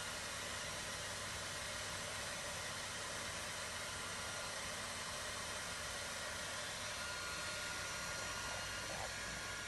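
Hair dryer running steadily: an even rushing hiss of blown air, with a faint whine that grows a little stronger near the end.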